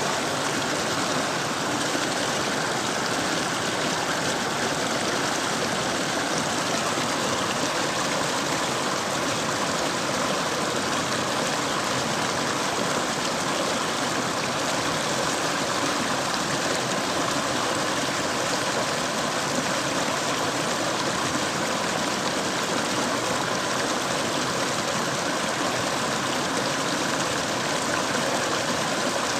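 Mountain stream flowing, a steady, unbroken rush of water.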